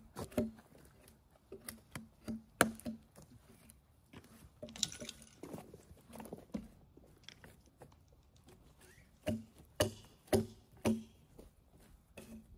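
A hand tool scraping and stripping bark from a log: irregular sharp knocks and scrapes, with a longer scraping stretch around five seconds in and a quick run of knocks near the end.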